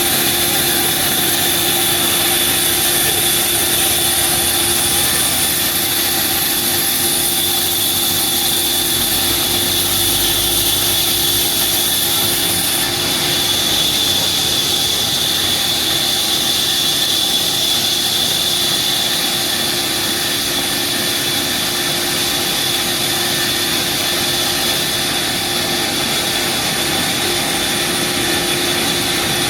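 Sawmill machinery running steadily: a loud, even mechanical whine over hiss, whose highest hiss drops a little about thirteen seconds in.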